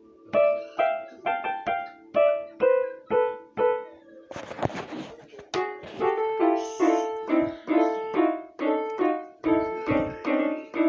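Small toy electronic keyboard with a piano voice, its keys slapped by a baby's hands: a string of single notes and jumbled note clusters, about two a second, with a short hissy noisy burst about four seconds in.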